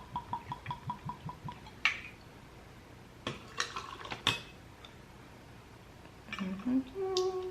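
Tequila glugging out of the bottle neck in quick, even pulses as it is poured into a measuring jigger; the pour stops about a second and a half in. A few sharp clinks follow as the jigger and shaker are handled, and a woman starts humming near the end.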